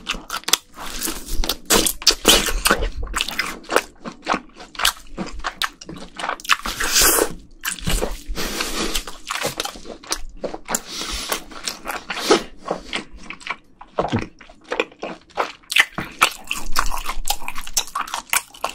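Close-miked chewing of raw Korean Hanwoo beef: a steady stream of quick wet clicks, lip smacks and squishes as the meat is bitten and chewed.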